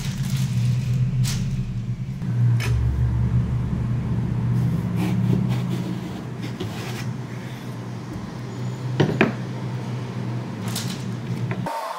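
Baking paper being laid out on a tray, then a kitchen knife slicing an aubergine lengthwise on a wooden chopping board, with scattered sharp clicks and knocks. A steady low hum runs underneath and stops abruptly near the end.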